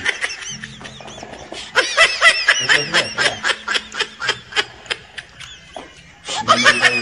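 Runs of rapid, high-pitched laughter, a quick string of ha-ha bursts at about five a second, heard at the start, again from about two seconds in, and once more near the end, over background music with a steady low bass line.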